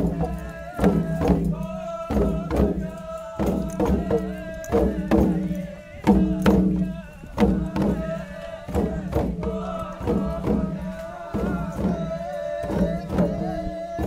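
A group of voices chanting together in held notes over hand drums beaten in a steady beat of about two strokes a second.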